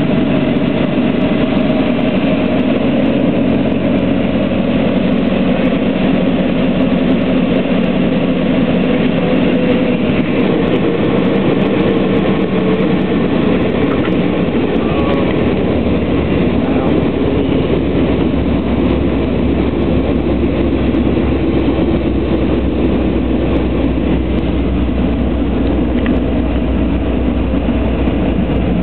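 Single-engine light aircraft's engine and propeller heard from inside the cockpit through a landing, running steadily at low power. About halfway through, a heavier low rumble comes in as the wheels roll along the runway.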